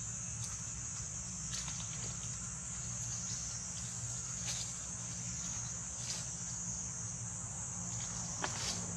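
Steady, unbroken high-pitched drone of an insect chorus, crickets or cicadas, in forest, with a few brief clicks and rustles of dry leaf litter.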